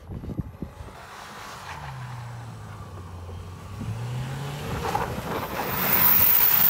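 Subaru Impreza hatchback sliding through snow, its engine revs dipping and then climbing again. Near the end it passes close and a rush of tyre and snow noise swells to the loudest point.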